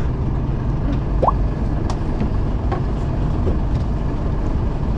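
Steady low rumble of a fishing boat's engine running, with a short rising squeak about a second in and a few faint clicks.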